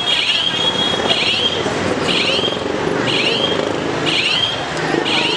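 Continuous crowd din with a shrill whistle-like sound repeating about once a second above it.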